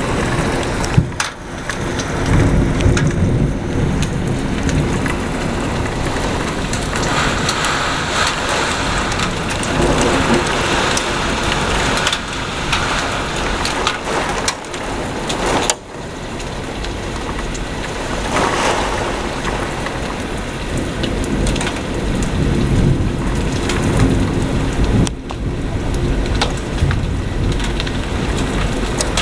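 Heavy rain pouring steadily, with thunder rumbling, during a severe thunderstorm. There is a single sharp click about halfway through.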